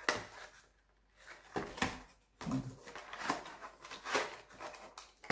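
Packaging being handled and opened to take out a selfie stick: irregular crinkling rustles and small clicks in quick succession, with short pauses.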